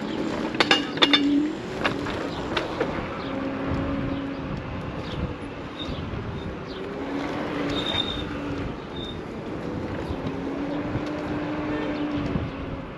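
Electric scooter ride in traffic: steady wind and road noise, with a low hum that comes and goes several times. A few sharp clicks sound in the first second or so.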